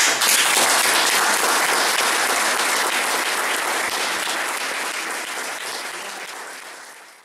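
Audience applauding, breaking out all at once at the end of a solo guitar piece, then slowly fading away near the end.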